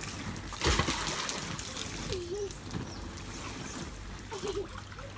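Water splashing as people play in an inflatable pool, with one loud splash about a second in, over the steady trickle of a water jet spraying into the pool.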